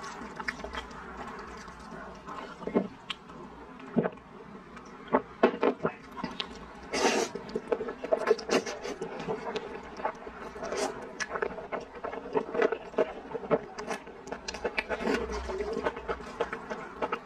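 Close-miked eating sounds: sweet potato glass noodles slurped and chewed, with many small wet mouth clicks and one longer slurp about seven seconds in.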